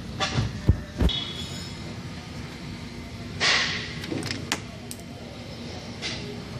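Handling noises on the minivan's plastic grille trim and push-pin clips: three sharp knocks in the first second, a short scrape about three and a half seconds in, then a few light clicks.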